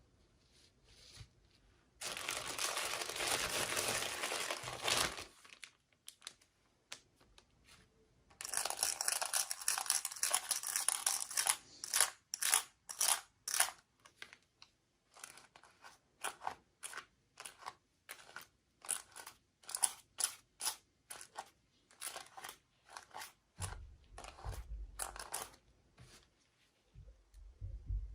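Packaging being torn open and crinkled by hand: two long stretches of tearing and rustling, then a run of short crinkles and crackles, with a few low bumps near the end.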